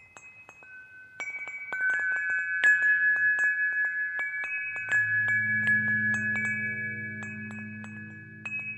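Wind chimes tinkling: many quick light strikes, each leaving a ringing tone. About five seconds in, a low steady drone comes in beneath them.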